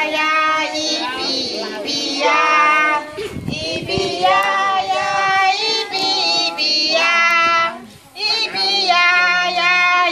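A group of children singing an action song together with women's voices leading, in sung phrases of held notes with short breaks between them.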